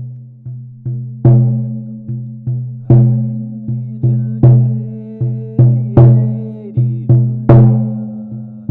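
Goat-hide shamanic frame drum, laced with cords on a wooden hoop, beaten in a steady rhythm of about two or three strokes a second, with a louder accented stroke about every second and a half. Each stroke rings on with a deep, pitched boom that the tight lacing makes last.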